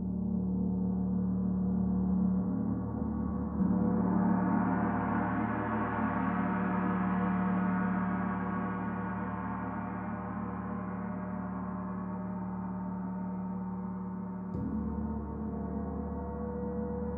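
Paiste Saturn planetary gong, tuned to D at 147.85 Hz, played with a mallet: a fresh stroke about three and a half seconds in makes the shimmering wash of overtones swell and then slowly fade over the lasting hum. Another soft stroke shifts the low tones a little over two seconds before the end.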